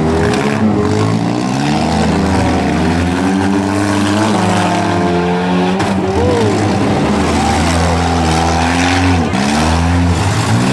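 Several four-cylinder compact cars' engines running and revving at once, their pitches rising and falling and overlapping as the cars accelerate and back off.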